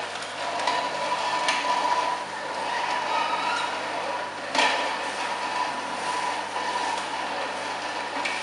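Slow horizontal juice extractor running, its motor humming steadily at one pitch while small pieces of vegetables and apple are pressed into the auger with the plunger. Several sharp cracks come through as pieces are crushed, the loudest a little past halfway.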